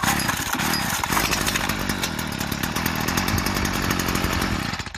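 Stihl FS 38 string trimmer's two-stroke engine catching as soon as its starter cord is pulled, then running with a fast, rapid firing for about five seconds before cutting off abruptly near the end.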